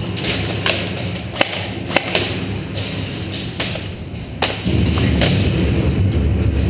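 Airsoft guns firing single shots at irregular intervals, about ten sharp pops. A low rumble gets louder about four and a half seconds in.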